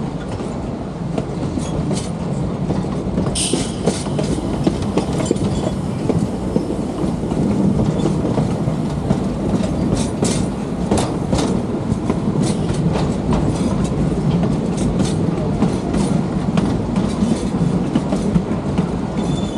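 Narrow-gauge excursion train rolling along its track: a steady rumble of the cars with irregular clicks and clacks from the wheels over the rails, and a short high-pitched screech about three and a half seconds in.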